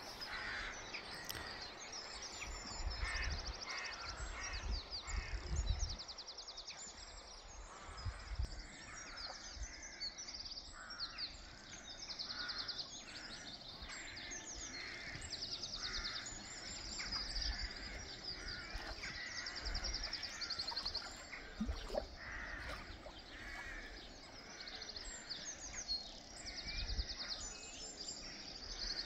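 Dawn chorus of birds: repeated fast high trilling song and harsh cawing calls at intervals, over a faint steady background hiss, with occasional low bumps.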